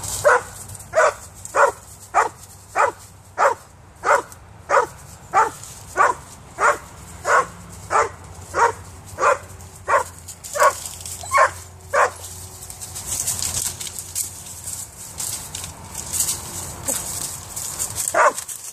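A Vizsla-Weimaraner cross dog barking up at a cat in a tree: a long run of about twenty evenly spaced barks, roughly one and a half a second. The barking stops about twelve seconds in, and there is one more bark near the end.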